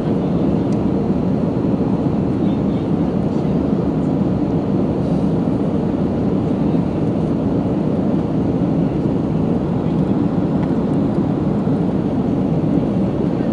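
Steady noise of an Airbus A330-300's twin turbofan engines and rushing air, heard from inside the passenger cabin while the airliner climbs after takeoff. The sound is even and unchanging, mostly low rumble with little high-pitched content.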